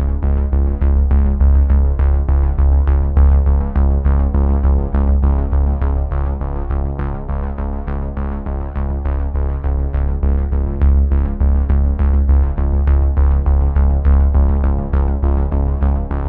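Background music with a steady beat and a deep, sustained bass.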